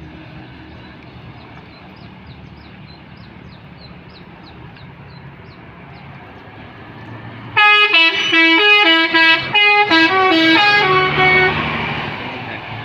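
Multi-note telolet bus horn playing a quick melody of stepped notes for about four seconds, loud, starting more than halfway in after a steady vehicle rumble, then fading.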